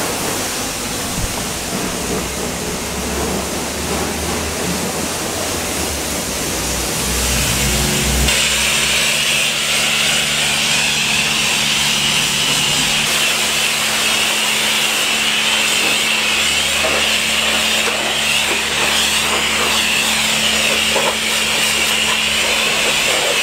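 Self-service car wash high-pressure rinse: about eight seconds in, the pump starts with a steady hum and the wand's water jet hisses steadily as it sprays the foam off the car. Before that there is a steady rushing noise.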